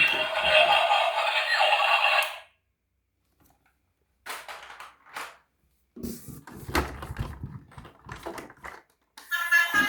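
Background music stops about two seconds in, leaving a moment of silence. Then come scattered irregular clicks and knocks, most of them between about six and nine seconds in, before music starts again near the end.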